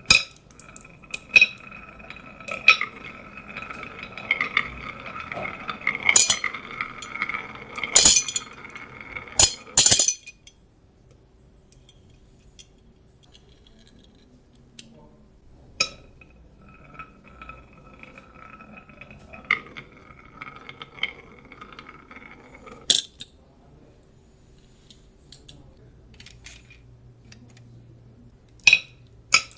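Glass marbles rolling along a marble run track, a steady ringing rumble with sharp clicks as they knock against the track pieces and drop. Two long runs, the first about ten seconds and the second about seven, with scattered single clicks between them.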